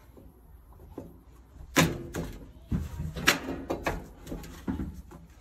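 Plastic and metal grill parts on a Weber Spirit 210 gas grill knocking and clicking as a slotted panel is slid and pressed into place on the frame: a string of sharp knocks starting about two seconds in.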